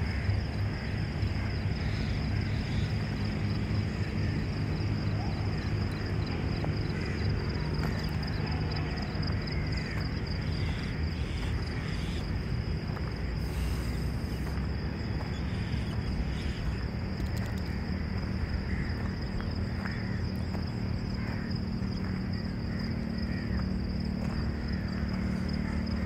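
Outdoor ambience: a steady high-pitched insect trill with scattered bird chirps over a constant low rumble.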